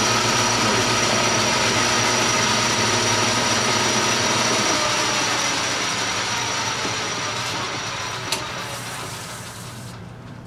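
Metal lathe running steadily with its chuck spinning, then switched off and winding down near the end. A single sharp click about eight seconds in.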